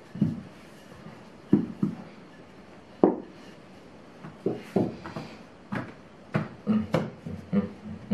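Wooden rolling pin and hands knocking and thudding on a table while strudel dough is rolled and pressed out: about a dozen short, irregular knocks, the loudest a little over a second and about three seconds in.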